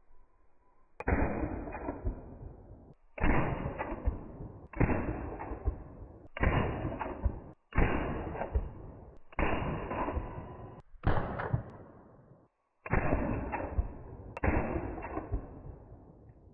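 Nine rifle shots, about a second and a half apart, from an AR-15-type rifle chambered in .350 Legend and fitted with a Hades Hybrid muzzle brake. Each shot is a sharp crack followed by a rolling echo that fades.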